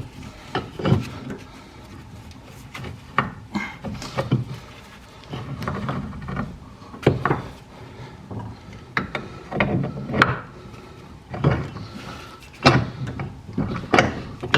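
Scattered knocks, clunks and rubbing of metal parts and hand tools being handled while fitting a car's rear axle and suspension parts, a dozen or so sharp hits at uneven intervals.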